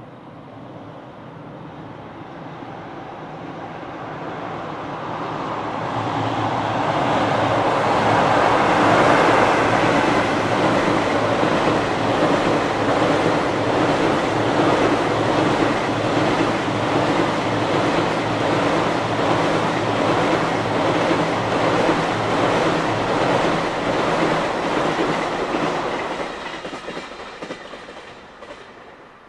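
EF66 electric locomotive hauling a long JR Freight container train across a girder bridge: a steady rumble with a rapid clickety-clack of wheels over rail joints. It grows louder over the first several seconds, holds, then fades near the end.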